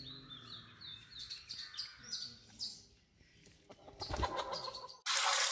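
Small birds chirping in short high calls, a low thump about four seconds in, then near the end a sudden loud rush of water starts pouring over raw whole chickens on a tray.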